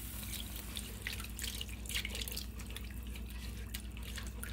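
Whole milk pouring into a hot skillet of butter-and-flour roux while a silicone-coated whisk stirs it: an irregular run of small splashy clicks and ticks from the liquid and the whisk against the nonstick pan, as the roux is thinned into gravy.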